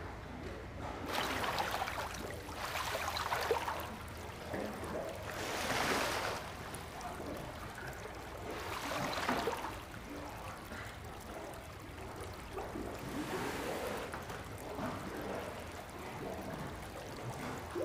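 Water sloshing and pouring off a washi papermaking mould as it is rocked over a vat of pulp slurry, in swells every few seconds: hand papermaking, the sheet being formed.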